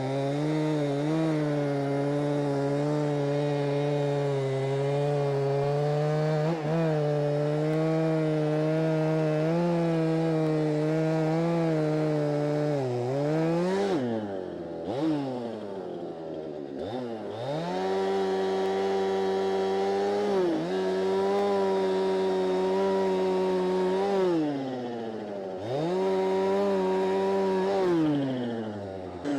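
Chainsaw running at full throttle while bucking a walnut log, its pitch dropping as the throttle is let off and revving back up, about four times in the second half.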